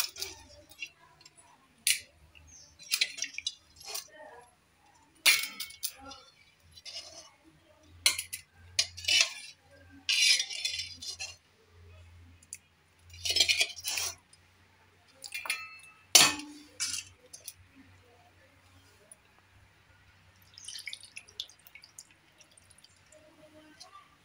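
Stainless steel plates and bowls clinking and clattering as they are set down and shifted on the ground. One sharper clank about sixteen seconds in rings briefly.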